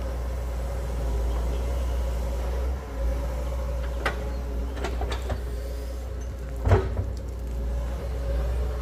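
Doosan wheeled excavator running steadily under digging load, a low engine rumble with a steady hum above it. A few sharp knocks cut through, the loudest about two-thirds of the way in.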